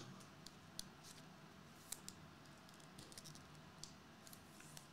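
Near silence, with a few faint, scattered clicks and ticks from trading cards being handled in the fingers.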